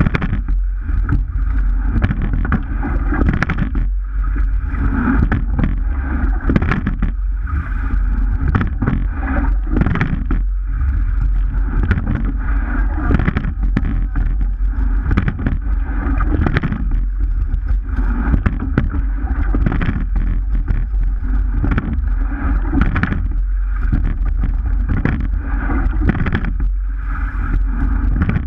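Rowing shell under way: a steady low rumble of wind and water rushing past a camera mounted just above the waterline, with repeated short knocks and clicks from the sweep oars and rigging as the crew rows.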